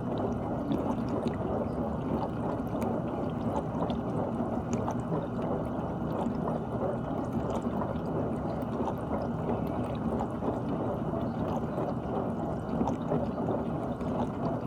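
GE dishwasher running mid-cycle, water spraying and sloshing inside the tub with a steady, muffled churn.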